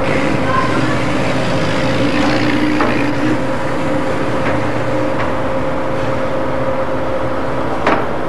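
Steady mechanical drone of a car ferry's machinery, with a constant hum over a low engine rumble, and a single sharp clank near the end.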